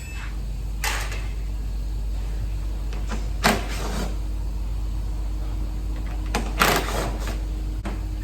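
Removing the fasteners of a plastic under-engine shield: three short mechanical bursts, about 1, 3.5 and 7 seconds in, over a steady low hum.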